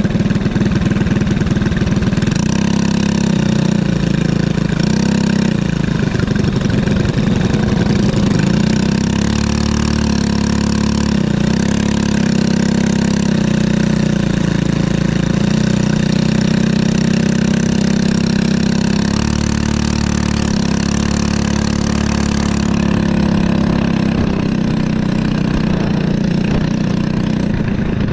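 Briggs & Stratton LO206 single-cylinder four-stroke kart engine running steadily at low revs, its pitch wavering a little. Near the end the sound changes as the kart moves out onto the track.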